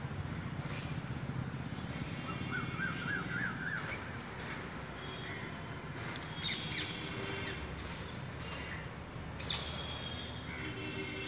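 Birds calling, with a short warbling trill a couple of seconds in and sharper chirps later, over a low steady rumble.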